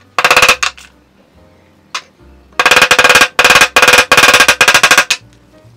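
Small hammer tapping rapidly on metal rivets in a leather piece, each strike ringing: a short burst just after the start, one blow about two seconds in, then a fast run of taps for about two and a half seconds.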